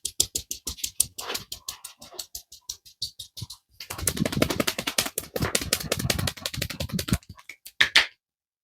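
A barber's hands tapping rapidly and rhythmically on a client's head in a massage, about ten quick taps a second. About four seconds in the strikes turn fuller and denser for about three seconds, and a few separate slaps come near the end.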